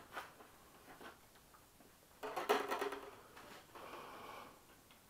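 A wire being pulled back through a model jet's fuselage and catching on something as it comes. There is a short rattling, scraping burst about two seconds in, then a softer rubbing sound.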